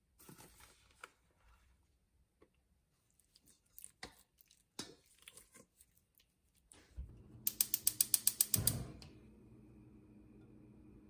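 Light scattered clicks and taps of a wooden utensil against a stainless-steel bowl while mixing. About three-quarters of the way in, a gas stove's burner igniter clicks rapidly about a dozen times, the burner catches with a low whoosh, and the flame then burns with a faint steady hiss.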